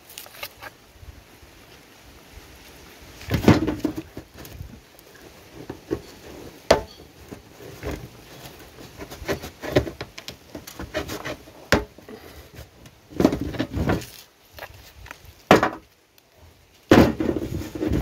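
Knife peeling and cutting sugar cane: irregular scraping strokes of the blade through the rind, with a few sharp cracks and some louder clusters of strokes.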